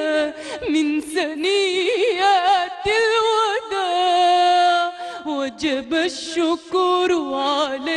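A solo female voice singing an Arabic devotional nasheed in long, ornamented melismatic runs with heavy vibrato, holding one steady note for about a second and a half near the middle.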